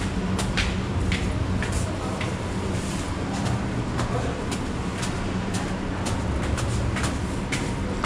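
Footsteps of a person walking, about two steps a second, over a steady low hum.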